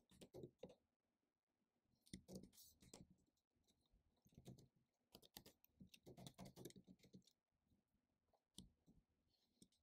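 Faint computer keyboard typing: a few short runs of keystrokes with pauses between them.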